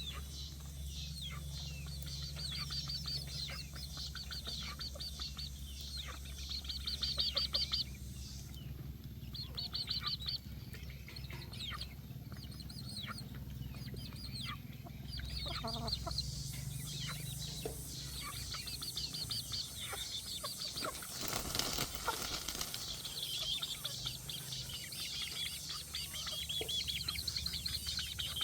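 Baby chicks peeping in quick trains of short high-pitched peeps, over a steady low hum.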